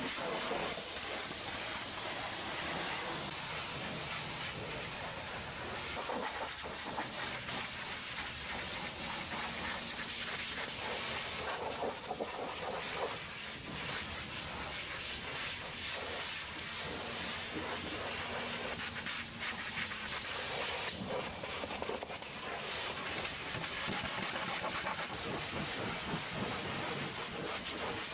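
Pressure-washer wand spraying a high-pressure water jet against a steel flatbed trailer and its spare tyre: a steady hiss with spattering spray.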